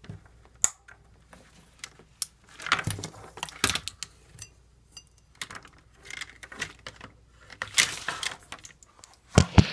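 Handling noise on a tabletop: a sharp click about half a second in, then a run of small clicks, knocks and rustles as power cords and objects are moved about.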